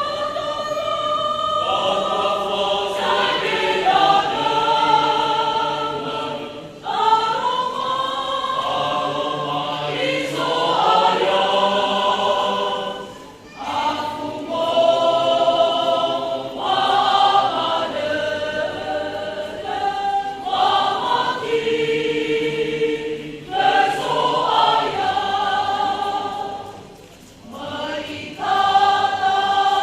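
A choir of church pastors sings a hymn in the Nias language, in sustained phrases with short breaks for breath between them.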